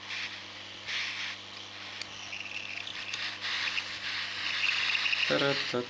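Hot air gun blowing a steady hiss over a phone's circuit board, with a low hum under it, as the board is heated to about 300 degrees to melt the buried solder of the SIM card reader's pins.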